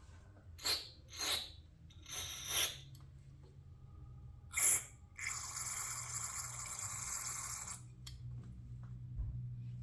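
Several short hissing sprays, then one steady spray of about two and a half seconds, blown into the passages of a lawnmower carburetor to clean them out.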